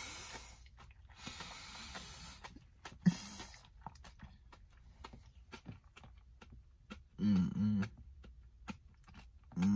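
Someone eating from a cup with a fork: brief rustling and a sharp click about three seconds in, then two short closed-mouth 'mm' hums of enjoyment near the end.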